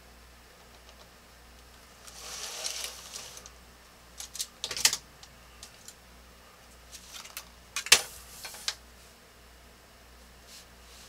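Drafting tools handled on a drafting table: a brief sliding swish as the parallel rule runs down the board, then a few sharp clicks and knocks as a plastic triangle and pen are set down, the loudest about eight seconds in.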